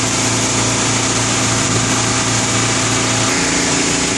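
Steady drone of machinery running in the background, a low hum with hiss above it; the low hum drops out and the sound shifts about three seconds in.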